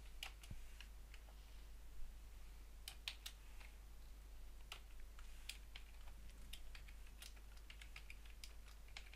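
Computer keyboard typing: faint, irregular keystrokes, a few of them clustered together.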